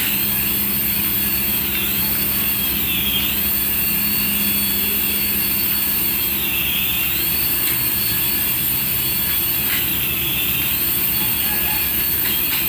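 Remote-control toy running: a steady whir with a high whine that dips and rises again every few seconds, like a looping jet-engine sound.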